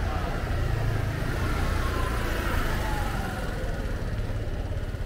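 A car's engine running close by on the street, growing louder and then easing off slightly as it passes, with a faint falling whine.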